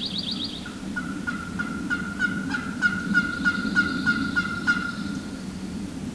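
A long, even series of turkey yelps: about thirteen sharp notes at roughly three a second that stop about five seconds in. A steady low rumble lies underneath.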